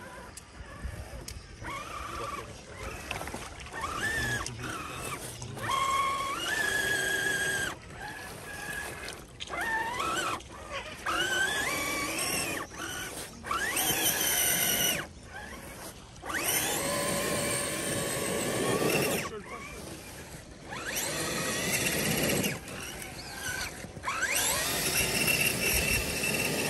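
Electric motor and gearbox of a radio-controlled scale crawler truck whining in repeated bursts of throttle, each a few seconds long, with the pitch rising and falling with speed.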